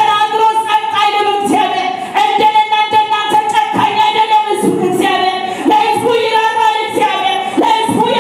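A voice singing a melody, with a steady held tone running underneath.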